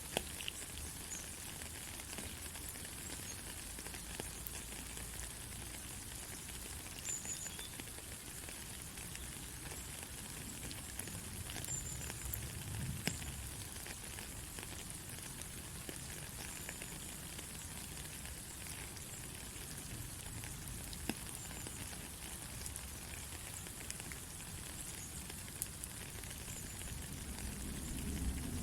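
Steady rain: an even hiss with scattered sharp drop ticks, and a low rumble building near the end.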